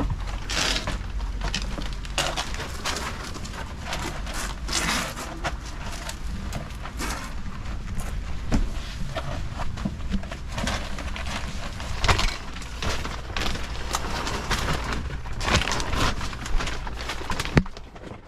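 Irregular rustling, scraping and crunching of a person crawling through a crawlspace, with a steady low hum underneath.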